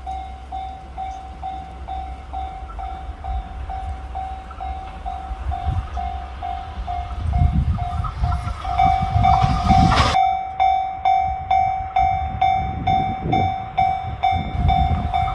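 Japanese level-crossing warning bell ringing steadily, about two strikes a second, as a JR West 683 series electric limited express train approaches at high speed. From about seven seconds in the train's rumble builds, with a sudden loud rush just after ten seconds as it reaches the crossing. Its wheels then beat rhythmically over the rail joints as the twelve cars go by.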